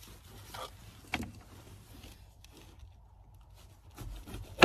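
A few small clicks as a knife is handled, then near the end a knife cutting into a bell pepper and coming down with a sharp knock on the cutting board.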